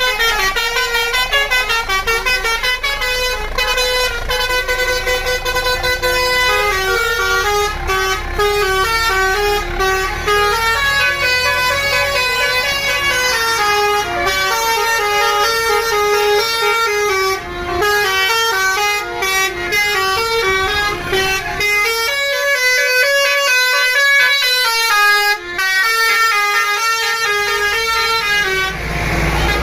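Bus telolet horn, a multi-tone horn, playing a fast melody of short stepping notes that runs on almost without a break.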